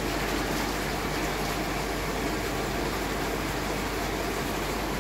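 Steady rush of running water, typical of aquarium pumps and filtration running.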